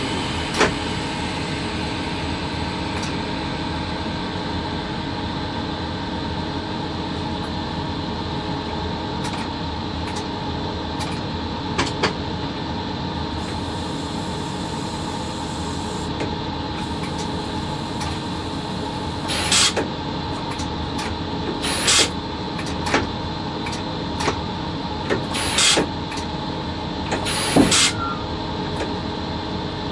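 Steady hum of a VL80 electric locomotive's machinery heard inside its cab, made of many fixed tones over a constant noise. Several short, sharp sounds stand out, most of them in the second half.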